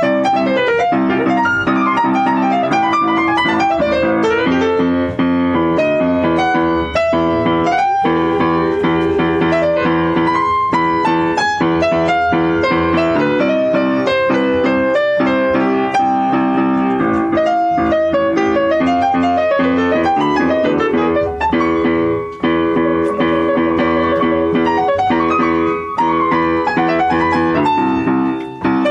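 Yamaha upright piano played four-hands: held chords in the middle register change every few seconds under a quick single-note melody line that winds up and down.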